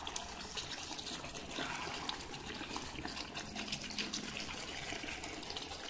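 Coconut-milk chicken curry simmering in an electric skillet, bubbling with many small irregular pops and crackles, as a spoon stirs through it.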